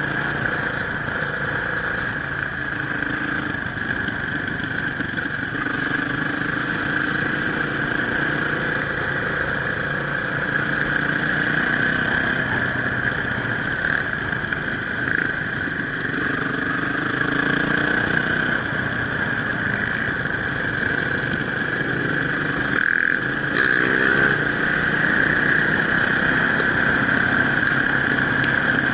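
Enduro motorcycle engine running steadily through the whole stretch, its revs rising and falling a little, with a brief run of quick revs about three-quarters of the way in.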